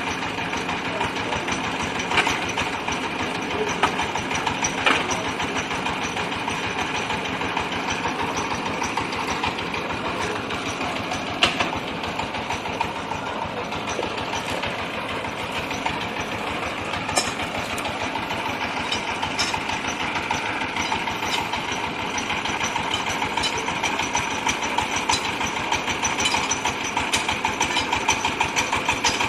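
Compressed-air rock-drilling rig for a water well running: a steady engine drone under a fast, even hammering rattle, with a few sharper knocks.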